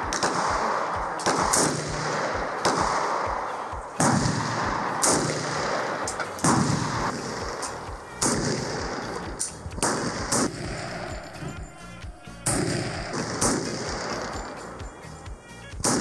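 Firearm shots, about a dozen single sharp cracks spaced unevenly over the stretch, each trailing off in a short echo.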